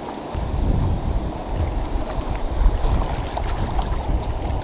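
Wind buffeting the microphone in uneven low rumbles, starting about a third of a second in, over the steady rush of turbulent river water.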